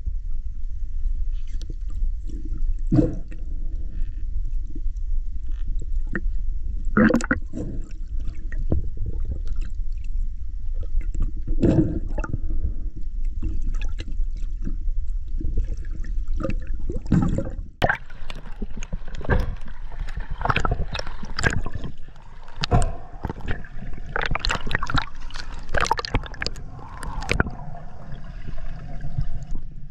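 Muffled water rumble and sloshing picked up by an action camera in a waterproof housing, in and just under the water, with scattered clicks. From about 18 seconds in, a busier run of crackling bubble and splash noises.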